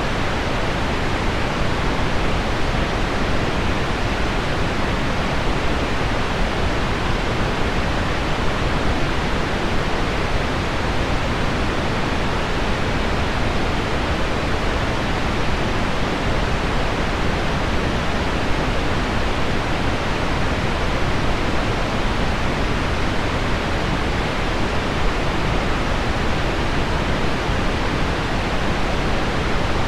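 Steady, even pink noise blended with heavy rain on window glass, a dense unchanging hiss weighted toward the low end.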